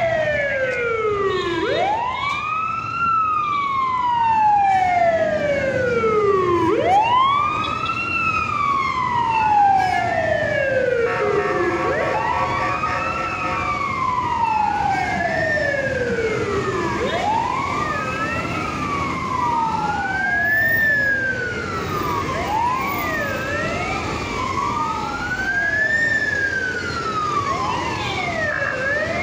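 Several ambulance sirens wailing at once, out of step with each other, each rising quickly and falling slowly over about five seconds. A steady held tone sounds briefly about eleven seconds in, over the low rumble of passing vehicles.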